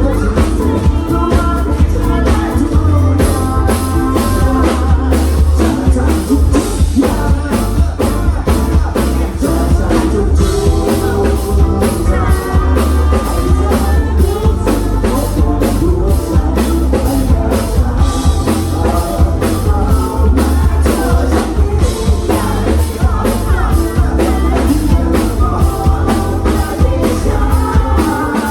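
Live band playing a pop-rock song: a singer over a drum kit keeping a steady beat and a heavy bass line.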